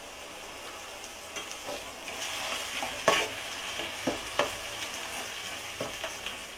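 Onion and mint masala sizzling in ghee and oil in a pot as tomato paste goes in, with the sizzle getting louder about two seconds in. A spoon stirring it knocks against the pot four times.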